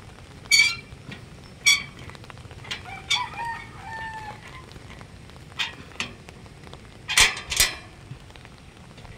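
A rooster crows once about three seconds in. Several sharp clicks and knocks come before and after it, and a steady rush of wind and rain runs underneath.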